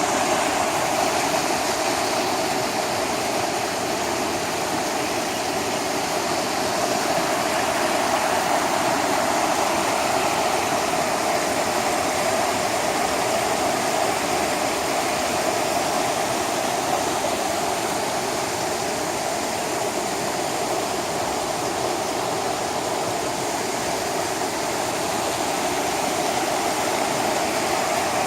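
Mountain valley stream rushing steadily, an even, unbroken wash of water noise.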